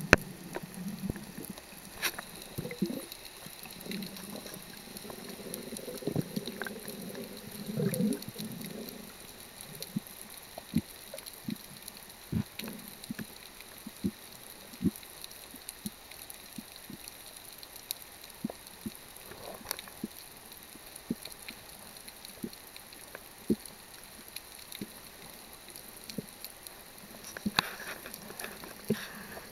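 Underwater reef sound picked up by a camera filming beneath the surface: a steady faint hiss with scattered clicks and knocks, and low, muffled gurgling during roughly the first nine seconds.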